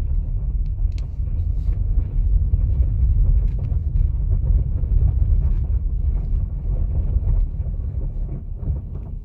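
Cabin noise of a Kia Ceed Plug-in Hybrid driving in electric mode over a gravel dirt road: a steady low tyre and suspension rumble with many small ticks of stones, easing off near the end. No high-pitched plastic-on-plastic rattle is heard, a sign that the blu-tack fix on the passenger-side connector has worked.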